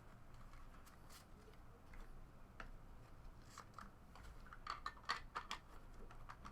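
Faint clicks and rustling from trading cards and their small card containers being handled. There are scattered ticks, and a quick run of sharper clicks about five seconds in.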